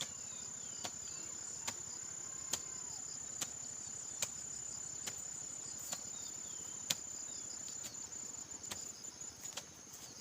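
Insects chirring in one steady high-pitched trill that turns broken near the end, with sharp knocks a little more than once a second and faint bird calls.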